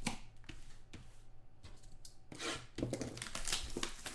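A trading card box's packaging being torn and opened by hand: several irregular bursts of tearing and rustling wrap and cardboard, busiest in the second half.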